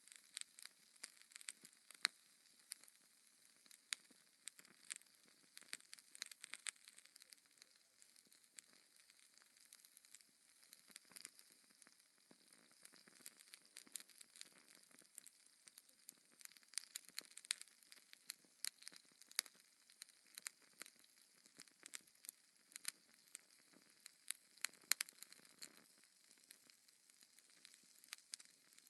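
Burning logs in a fireplace crackling: irregular sharp pops and snaps, several a second, over a faint soft hiss.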